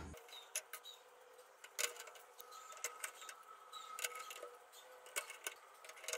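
Scattered small metallic clicks and ticks of a screwdriver driving and tightening the screws that hold a motherboard to the metal standoffs of a PC case.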